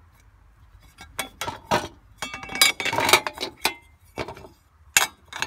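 Rocks being dropped in, clinking and clattering against hard parts: a run of separate sharp knocks, some with a short ring, thickest in a quick cluster about two to three seconds in.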